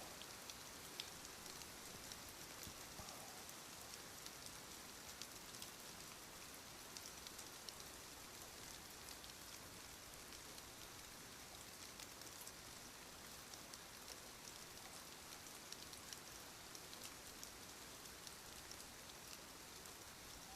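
Near silence: a faint, even hiss with scattered light ticks and no snoring.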